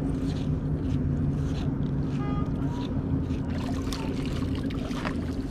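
A boat engine running steadily with a low, even hum, with a few light clicks and knocks over it.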